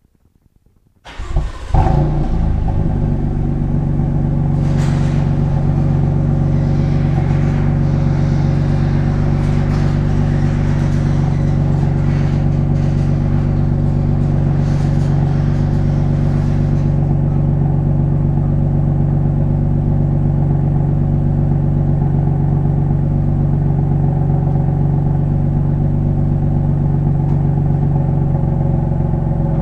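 BMW M3 F80's twin-turbo inline-six starting about a second in with a brief rev flare, then settling into a steady idle. Over it, a garage door opener runs with a rattling hiss as the door goes up, stopping about halfway through.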